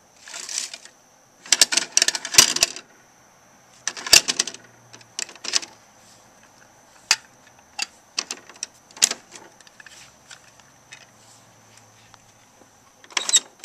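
Hard plastic clicks, clacks and rattles from a Bruder toy garbage truck's rear bin lifter and two plastic toy bins being worked by hand, in irregular bursts with the loudest clatter about two and four seconds in.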